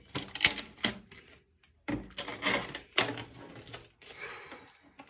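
Protective film being peeled off a freshly painted clear plastic RC monster truck body: crackling, ripping plastic in uneven spurts, with the stiff shell crinkling in the hands.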